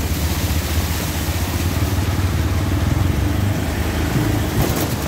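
Small engine of a CNG auto-rickshaw running steadily, heard from inside the passenger cab over road noise, with a short hiss near the end.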